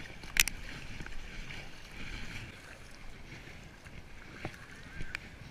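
Double-bladed kayak paddle dipping and splashing in sea water alongside an inflatable kayak, with a steady trickle of water off the blades. A sharp click about half a second in is the loudest sound, with a few fainter clicks later.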